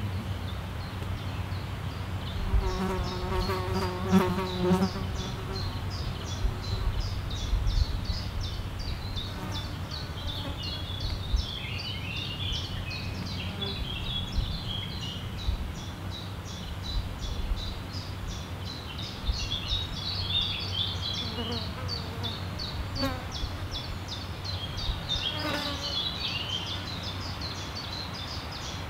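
A flying insect buzzes close past the microphone for a couple of seconds, starting about two and a half seconds in, and again more faintly near the end. Songbirds keep up rapid high chirping throughout.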